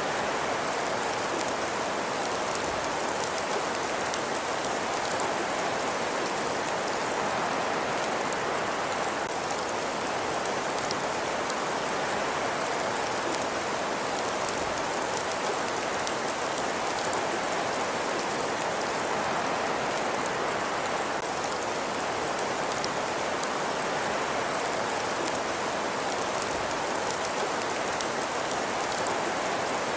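Wood fire in a fireplace burning: a steady hiss with fine, dense crackling that keeps up evenly throughout.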